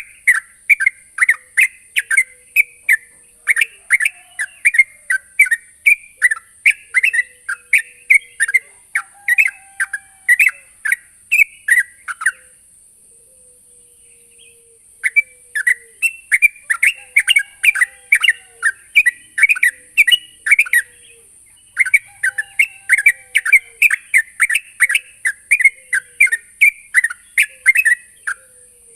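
Yellow-vented bulbul (trucukan) singing vigorously: runs of quick, bubbly chirping notes, a few a second, with a pause of about three seconds near the middle and a shorter break later. This is the loud rival-calling song used to provoke another bulbul.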